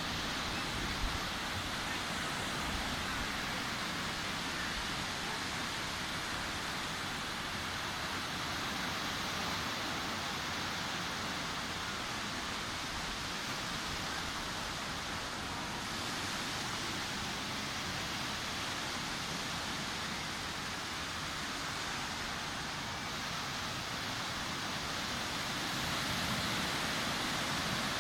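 Sea surf washing onto a beach: a steady rushing wash of waves with gentle swells in level, a little louder near the end.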